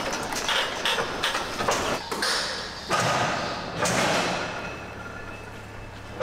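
John Deere C8R corn head and its header trailer rattling and clunking while being backed into a pole barn: a quick run of knocks, then louder clatters about two, three and four seconds in, echoing in the shed.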